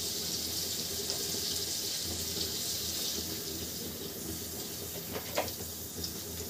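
Butter and a little cooking oil sizzling softly as they melt in an aluminium kadhai, a steady hiss, with a light knock about five seconds in.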